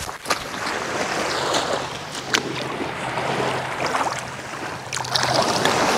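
Small waves washing onto a shingle beach, with footsteps crunching on the stones and a few sharp ticks, and a faint low steady hum through the middle. The washing is loudest near the end.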